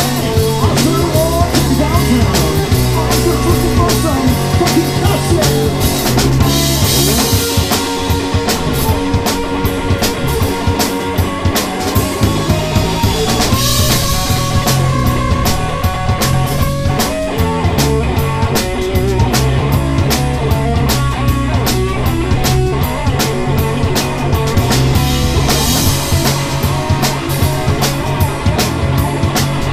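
A live rock band playing: electric guitars over a steady drum kit beat.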